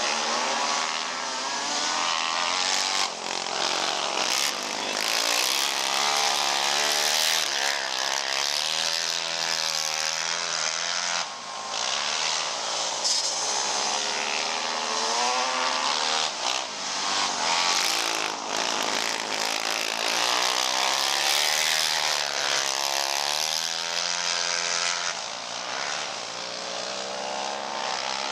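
Several racing quad ATV engines running together, their pitch rising and falling as the riders work the throttle lap after lap.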